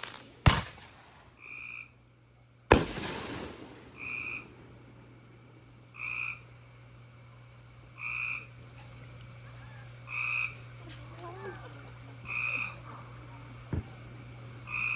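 Two sharp firework bangs in the first three seconds, the second followed by a short rumbling tail. Then a frog calls at an even pace, a short call about every two seconds, seven times, over a steady low hum.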